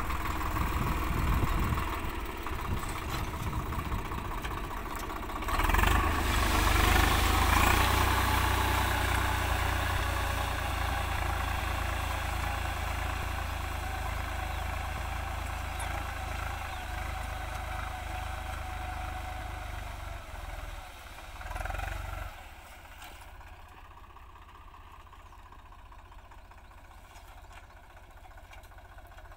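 Swaraj 855 FE tractor's three-cylinder diesel engine running steadily under load while pulling a ridger through tilled soil. The sound drops clearly a little over twenty seconds in as the tractor draws away.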